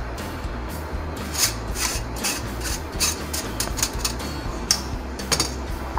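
A spoon scraping and scooping cooked rice in a large metal cooking pot, spreading it in a layer: a string of irregular short scrapes.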